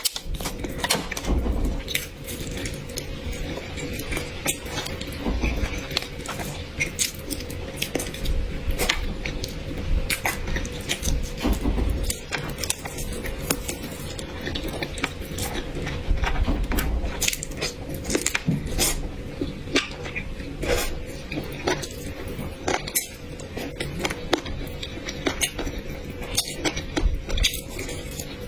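Close-up eating sounds: utensils clicking and scraping against dishes many times, with occasional low thuds, over a faint steady hum.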